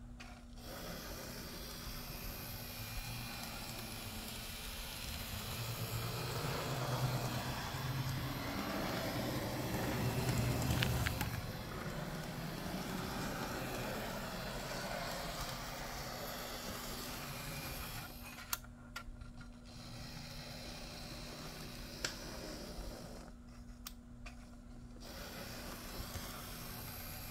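AZL Z scale GP38-2 model locomotive running around a track loop: a faint, steady whir of its tiny motor and wheels on the rails, louder around the middle, with a few light clicks.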